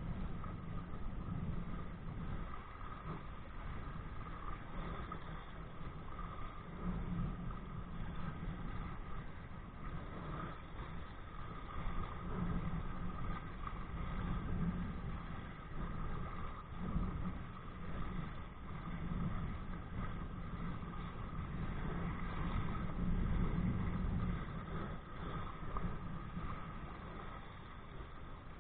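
Wind buffeting a body-worn camera and water rushing past a kite-pulled kayak, a steady rush with a low rumble that swells and eases every few seconds.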